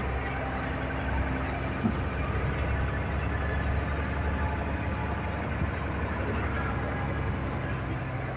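Truck engine running steadily under way, heard from inside the cab: a low, even drone with several steady tones layered through it.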